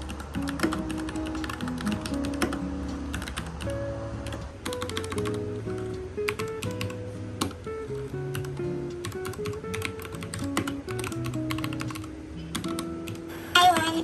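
Typing on an RK61 mechanical keyboard: a continuous, fairly fast run of key clicks over soft background music.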